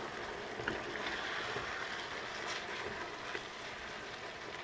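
Chicken pieces and curry paste sizzling steadily in a pot over a gas flame, with a few light clicks.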